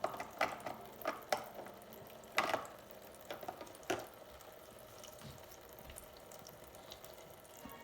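Light knocks and splashing as plastic toy pieces are handled in a water-filled, battery-operated toy kitchen sink. There are about seven sharp knocks in the first four seconds, then only a quieter wash of water.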